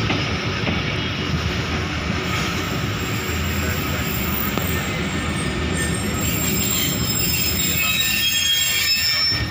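Passenger train running on the rails, heard from the coach: a steady rumble of wheels on track, with high-pitched wheel squeal coming in over the second half.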